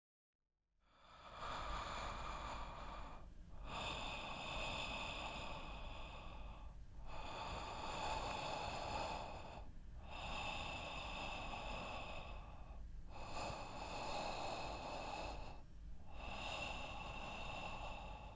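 A sleeping person's noisy breathing, starting about a second in: long airy breaths with a faint whistle, following one another about every three seconds.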